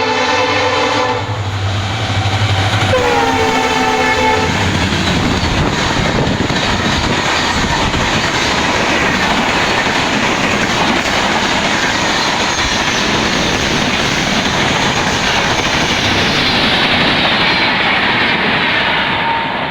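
Indian Railways EMD diesel locomotive sounding its multi-note horn: one blast ending about a second in and a second short blast about three seconds in. Then the train passes with a steady roar of wheels on the rails.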